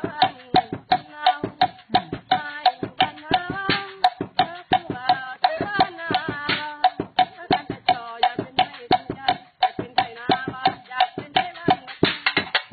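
Sticks beating a makeshift drum kit of a hollow wooden log drum, a plastic bottle and a sheet of metal in a fast, steady rhythm, several strikes a second, some with a short pitched ring.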